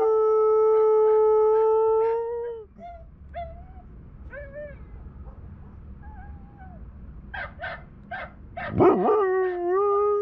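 A Doberman howling: one long steady howl lasting about two and a half seconds, a few short whines and yips in the middle, then a second howl that starts near the end and holds steady.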